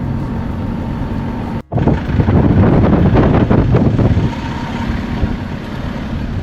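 Campervan driving: steady engine and road noise inside the cab. It cuts out briefly about a second and a half in, then comes back louder and rougher for a couple of seconds before settling again.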